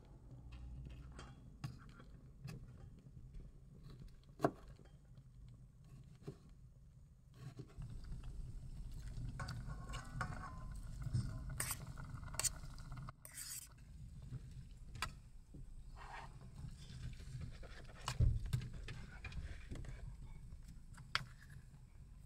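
A chef's knife tapping on a plastic cutting board as tomato is diced. Then a metal spoon scrapes diced tomato and onion out of a stainless bowl into a stainless steel pot, clinking against the metal, with one louder knock later on.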